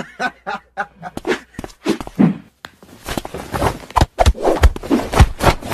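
A quick series of short slaps and thumps, spaced out at first and then coming faster and louder after about three seconds.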